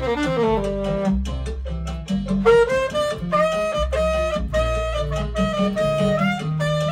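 Alto saxophone playing a flowing jazz melody line over a backing track with sustained bass notes and light percussion.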